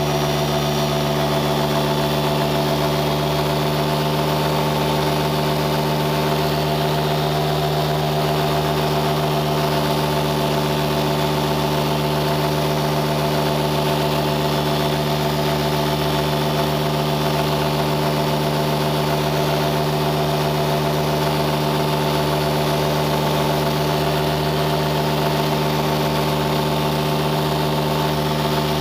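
An engine running at a steady, unchanging speed: a constant hum that neither rises nor falls in pitch.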